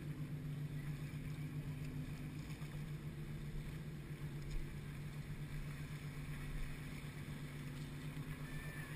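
Steady low engine drone, unchanging in pitch, with a light hiss of wind.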